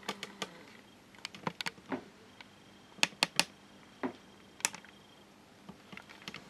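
Irregular sharp clicks and light taps, about a dozen, scattered over quiet room tone.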